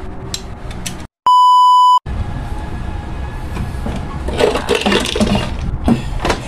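A loud, steady electronic beep lasting under a second, with a moment of dead silence cut just before it, about a second in. Around it, the clatter and knocks of an air cooler's fan motor and plastic fan shroud being handled and set back into the housing.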